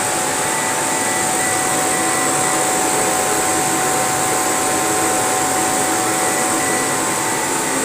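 Steady running noise of a laser engraving and cutting machine: an even fan-like rush with a few thin steady whining tones above it.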